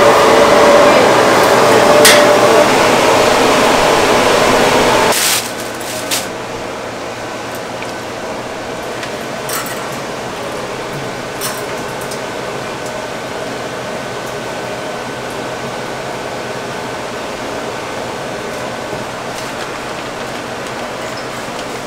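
Gas burner flame burning loudly with a steady rushing sound inside a stainless-steel roasting drum oven. It stops abruptly about five seconds in, leaving a steady low hum with a few light clinks of steel meat hooks.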